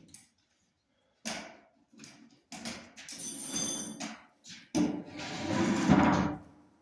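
Knocks and thuds from work on a log, with a short scrape about three seconds in and a longer, louder rasping scrape from about five seconds in.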